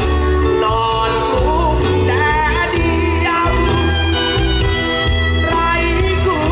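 A male singer performs a Thai luk thung song live with a full band. His voice rides over drum kit, bass and keyboard, which keep a steady beat.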